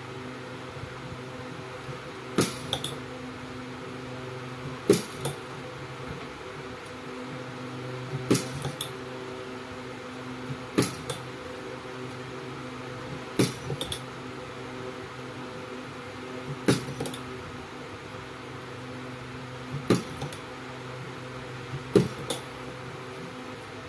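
Battery-cell spot welder firing on the pack: eight sharp snaps, each followed by a second, weaker one, every two and a half to three seconds, over a steady hum.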